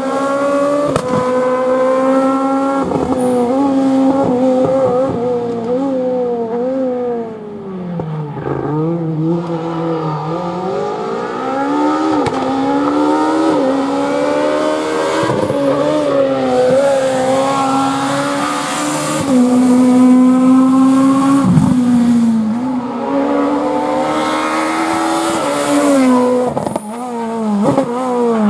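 Renault Clio S1600 rally car engine revving hard at high rpm, holding a steady high note between quick gear changes, with sharp cracks at the shifts. About eight seconds in the revs fall away as it slows, then climb again as it accelerates.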